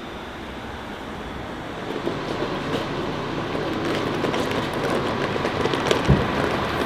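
Hard-shell wheeled suitcase pulled over paving stones, its small wheels rattling and clicking over the joints, with one heavy thump about six seconds in.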